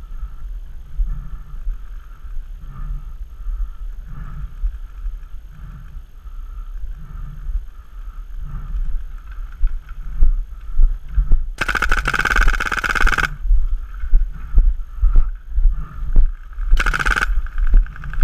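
Paintball marker fired in rapid strings: a long burst of shots about two-thirds of the way in and a shorter burst near the end, over a steady wind rumble with a few scattered single pops.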